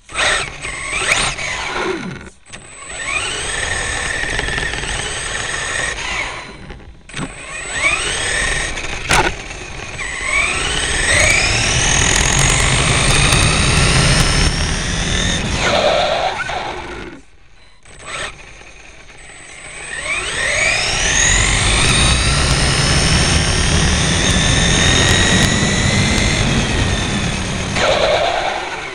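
Electric motor of an Aftershock 8E RC car, run on two 2S LiPo packs in series, whining as it accelerates over and over, each run a rising whine, over a steady rumble of tyres on asphalt. The drive cuts out briefly a few times between runs.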